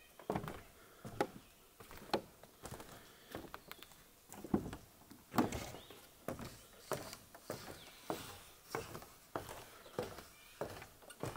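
Footsteps on wooden deck boards and wooden stairs, walking down at a steady pace with a hollow knock about every half second.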